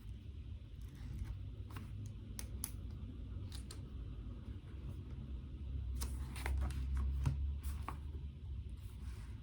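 Scattered light clicks and rustles of small objects being handled at a desk, busiest about six seconds in, over a steady low hum.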